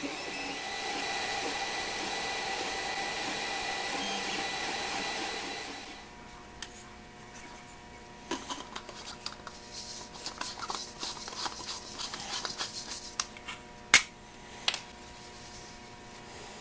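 Creality CR-10 3D printer running mid-print, a steady whirr of fans and motors with a faint whine. About six seconds in it gives way to light plastic clicking and scraping as printed plastic parts are handled and a printed bulb's threads are screwed into a threaded base, with one sharp click near the end.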